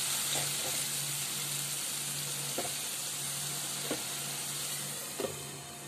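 Onion, ginger and garlic paste sizzling steadily in mustard oil in a metal kadai as the masala is fried down, with a few light knocks of the spatula against the pan. The sizzle eases slightly near the end.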